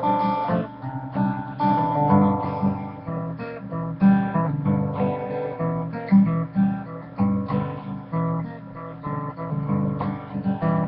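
Acoustic guitar playing an instrumental break in a folk song, picked and strummed, a bass note on each beat under higher melody notes.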